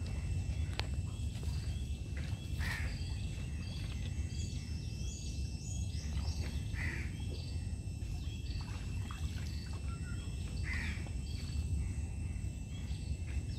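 Waterside outdoor ambience: small birds chirping in quick series of short high notes, busiest about four to seven seconds in, over a steady low rumble. A few short harsher calls come about three, seven and eleven seconds in, and a thin steady high tone, typical of insects, runs underneath.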